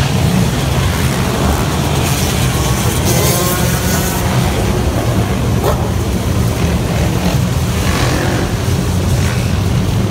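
A group of motorcycles riding in the street, their engines running together in a loud, steady drone, with engines revving up in pitch a few times.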